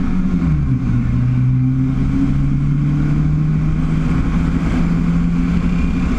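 Car engine heard from inside the cockpit of an airplane-bodied drag car, its note dropping to a lower pitch about half a second in and then running steadily.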